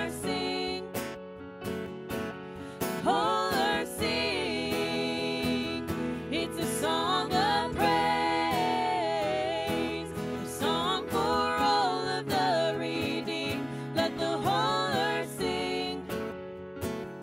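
Worship band playing a song: a woman's sung vocal over keyboard and acoustic guitar.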